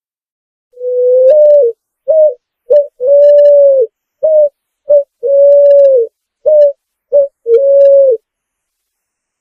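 Picazuro pigeon (pomba asa branca) cooing one full song phrase of about ten low notes. A long coo opens the phrase, then pairs of short notes alternate with long coos, each long coo dipping at its end. The phrase starts about a second in and stops about a second before the end.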